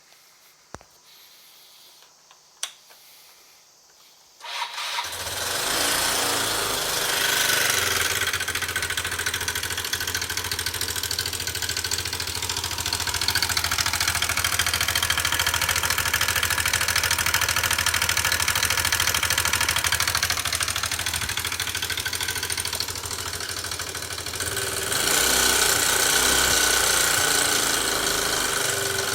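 Yamaha Cygnus X scooter engine starting after two short clicks and then running steadily, louder for a few seconds near the end. It is making the abnormal engine noise that the owner traces to a camshaft worn down by oil starvation, after water-laden sludgy oil from short warm-up-less commutes clogged the oil line.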